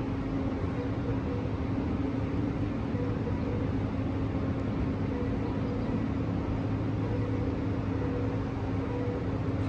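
Amtrak Capitol Corridor train standing at the platform with its Siemens SC-44 Charger diesel locomotive idling: a steady low hum with a few held tones.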